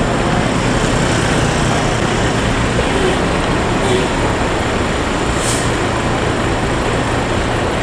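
Steady road-vehicle noise, a running engine and road rumble typical of a bus, with a short hiss about five and a half seconds in.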